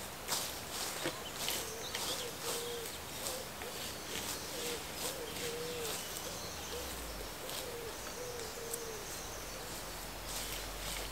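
A bird calling with low, soft hooting notes in several short phrases of a few notes each, over scattered light clicks and rustles.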